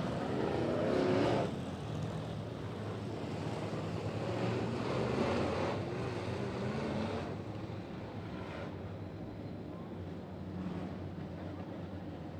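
Dirt-track Sportsman race cars' engines running at low pace speed as they roll past. The sound swells as a car passes about a second in and again around five seconds, then settles to a steadier drone.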